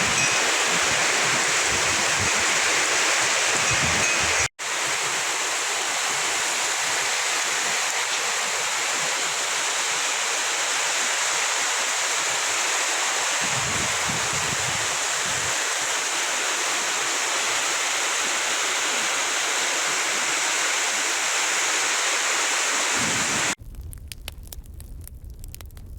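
Heavy storm rain pouring down, a steady loud hiss. It cuts out for an instant about four and a half seconds in, and gives way to a quieter crackling sound near the end.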